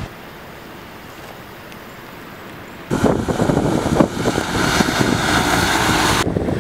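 Faint steady wind and water noise, then about three seconds in a fire engine drives past close on a wet road, its engine running under a loud hiss of tyres throwing up water. The hiss stops suddenly near the end.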